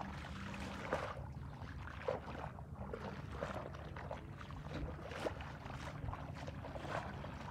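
Bare feet stepping through wet mud, a wet squelch at each step, roughly one a second.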